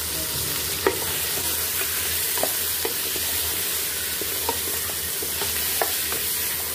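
Chicken pieces sizzling as they fry in oil with onions in a metal pot, stirred with a wooden spoon that knocks against the pot several times.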